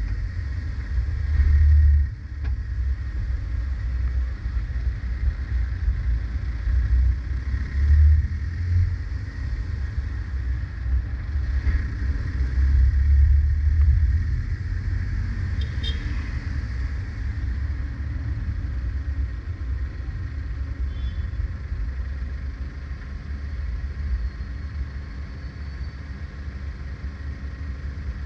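Car driving in city traffic: a steady low rumble of engine and tyres on the road, swelling at times and easing off slightly toward the end.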